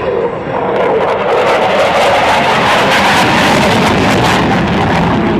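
USAF Thunderbirds F-16 fighter jet flying past, the loud rush of its jet engine swelling about a second in and holding steady.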